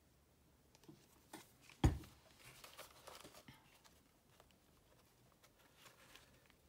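Hands handling paper and bookbinding materials on a table: a few light taps, one sharp knock about two seconds in, then soft paper rustling and faint ticks.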